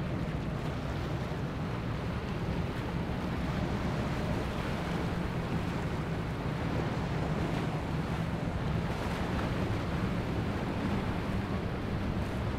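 Steady low drone of a large motor yacht's engines as it passes, mixed with the wash of water and wind on the microphone.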